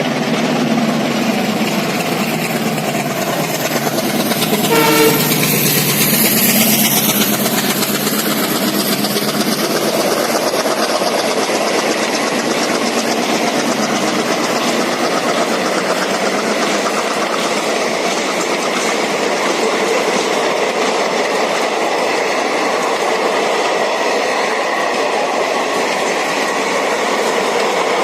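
An express train hauled by an Indian Railways ALCo diesel locomotive passes at speed. The locomotive's engine and a brief horn note peak as it goes by about five seconds in, then the coaches roll past with a steady clickety-clack.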